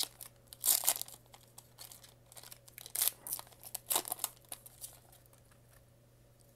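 Foil wrapper of a Pokémon Vivid Voltage booster pack crinkling as it is torn open and the cards are slid out, in several sharp crackling bursts, the loudest about a second in; it goes quiet after about five seconds.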